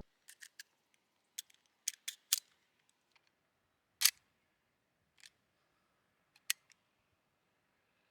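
Sharp metallic clicks of the restored Walther P38 pistol's parts being handled and worked, about ten in all, irregularly spaced, the loudest about four seconds in.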